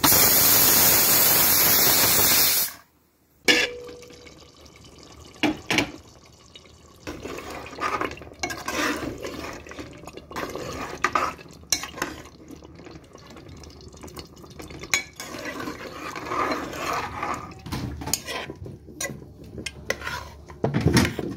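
Aluminium pressure cooker venting steam through its weight valve with a loud, steady hiss for about two and a half seconds, which stops abruptly. After that, a metal ladle clinks and scrapes against the pot as it stirs thick meat curry.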